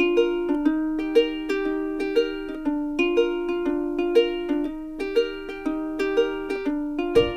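Background music: a light, bright melody of sharp, quickly fading notes, about two a second, with a low bass line coming in near the end.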